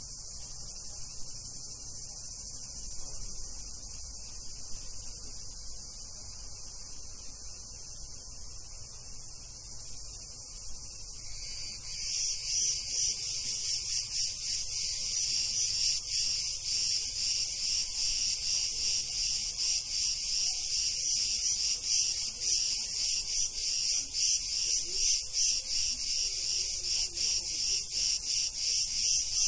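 Cicadas singing in a steady, high-pitched buzz. About twelve seconds in, a louder and closer chorus joins with a rapid pulsing.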